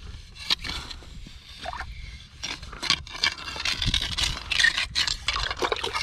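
Metal lobster hook probing a lobster hole under a rock in shallow water, scraping and knocking against sand and stone in a run of short, irregular scrapes and clicks that come thicker in the second half.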